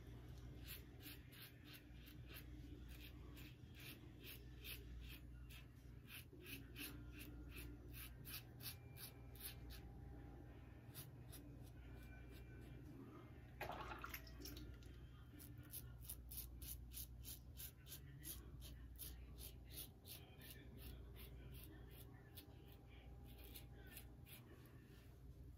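Gillette Rocket safety razor with a Gillette Sputnik blade (third use) scraping through lathered stubble on the neck: faint, rapid short crackles in runs of a few seconds, one run per stroke or set of strokes, with a brief louder noise about 14 seconds in.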